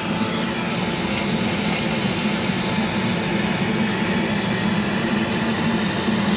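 Chinese laser cutter running a cut through corrugated cardboard: the steady rushing noise of its fans and air assist, with a low hum.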